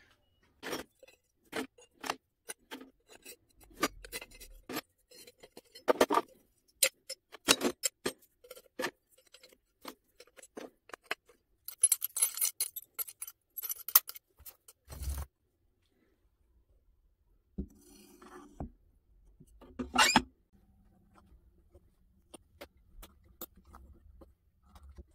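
Pieces of brass scrap clinking and knocking together as they are handled and dropped into a crucible, with a longer rattling scrape about twelve seconds in and two heavier knocks after it.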